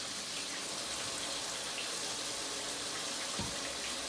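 Kitchen tap running steadily as fingers are rinsed under it, with one low thump near the end.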